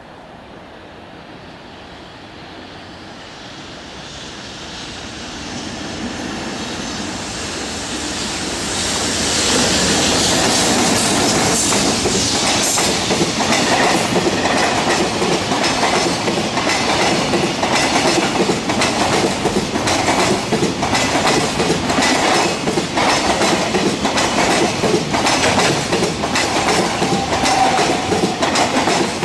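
Container freight train hauled by an EH500 electric locomotive approaching, growing louder over the first ten seconds, then its container wagons rolling past close by with a steady, rhythmic clatter of wheels over the rail joints.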